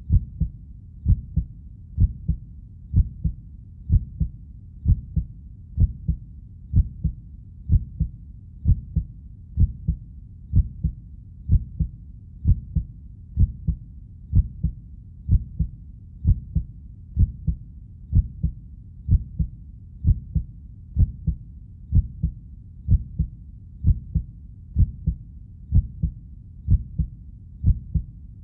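Heartbeat: steady double "lub-dub" beats, a strong thump followed closely by a softer one, repeating a little under once a second at an even, resting pace.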